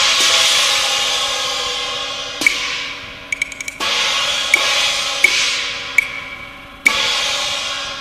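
Cantonese opera percussion: gong and cymbal crashes, each ringing out and fading over about three seconds, about every three seconds, with sharp clicks struck between them.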